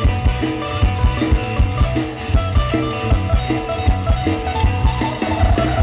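Isan mor lam stage-show band music played loud through a PA system: a steady kick-drum beat under a repeating instrumental riff.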